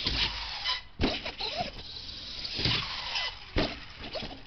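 RC monster truck launching off a ramp, its motor whining, then landing and bouncing with sharp knocks about a second, two and a half and three and a half seconds in.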